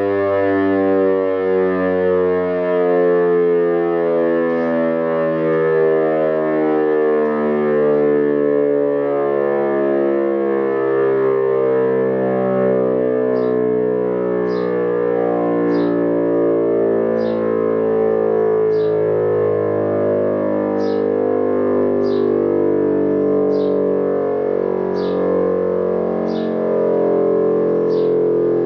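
Helin E57 electromechanical siren sounding a steady, droning chord of tones, its pitch slowly sagging and recovering as the timer switches it through the fire-alarm sequence. From about halfway through, faint regular clicks come roughly once a second.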